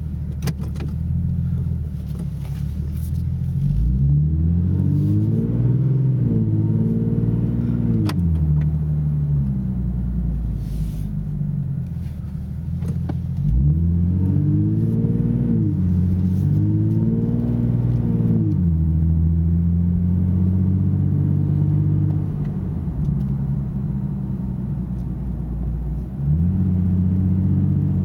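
2009 Nissan 370Z's 3.7-litre V6 with a Fast Intentions exhaust (18-inch carbon-fibre resonators, non-resonated high-flow cats), heard from inside the cabin with the windows up. It drones at light throttle, then makes two pulls where the pitch climbs with revs. Each pull's pitch drops back as the automatic shifts up, and the second pull runs through two gears before settling to a steady cruise.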